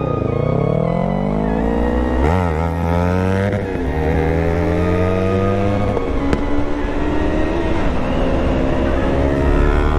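Yamaha R3's 321cc parallel-twin engine pulling away from a stop under acceleration. The revs climb and drop at upshifts about two, three and a half and six seconds in, then hold nearly steady.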